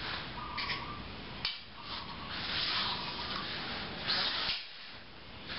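Several short swells of scuffing and rustling, each under a second long, from bare feet sliding on foam mats and uniforms moving as two people step through a sword drill, with a light click about one and a half seconds in.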